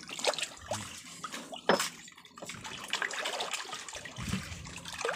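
Seawater splashing and dripping at the side of a small boat as a hooked fish thrashes at the surface and is grabbed by hand. There is one sudden louder hit about two seconds in.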